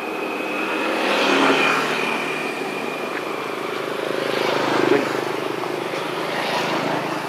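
Engine noise of passing motor vehicles, swelling and fading about three times, over a steady high tone that fades out after the first few seconds.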